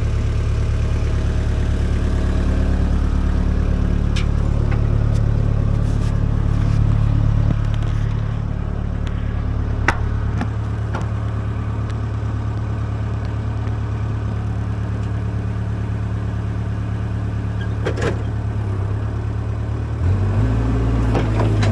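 Excavator's diesel engine running steadily under work, with a few sharp clanks. The engine note eases about a third of the way in and picks back up near the end.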